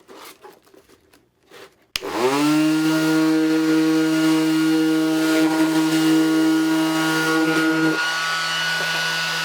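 Ryobi 18-volt cordless 5-inch random orbital sander switched on about two seconds in, spinning up quickly and then running at full speed with a steady high hum. Its tone shifts slightly near the end.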